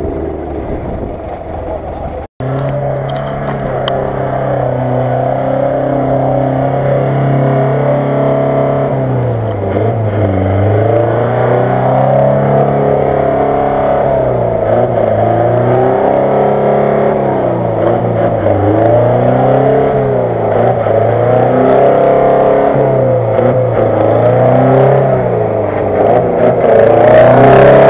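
UAZ-469 off-roader's engine working hard in deep mud, its revs sagging under load and climbing back again about every two seconds as it pushes through the ruts.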